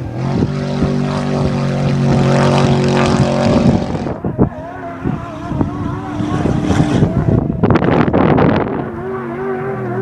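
Off-road race vehicle engines running. A steady engine note holds for the first few seconds, and a short, loud burst about eight seconds in is a vehicle revving hard or passing close.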